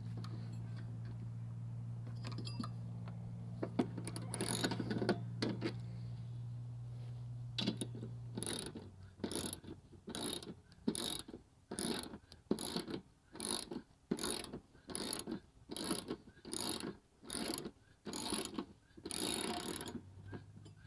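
Ratchet wrench with a 14 mm socket clicking in evenly spaced strokes, about one and a half a second, as a bolt is worked out. A steady low hum with a few scattered clicks comes first and stops about eight seconds in.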